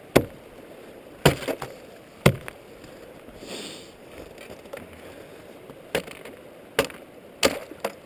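Footsteps crunching and cracking through refrozen snow crust over river ice, with water underneath. About eight sharp cracks, unevenly spaced with a pause in the middle, over a faint steady hiss.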